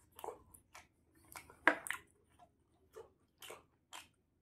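Close-miked eating sounds: a man chewing fried chicken and licking his fingers, with wet mouth noises and smacks coming as a string of short separate sounds, the loudest a little under two seconds in.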